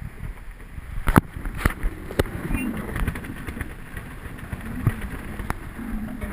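Hurricane-force wind buffeting the microphone in a rough, steady rumble, broken by several sharp knocks and bangs, the loudest just over a second in.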